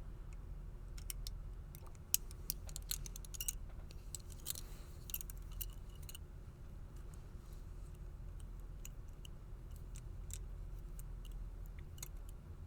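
Faint, irregular small metallic clicks and scrapes of a pick wire and tension wrench working the levers of a four-lever padlock. The clicks come thickest in the first half and thin out later.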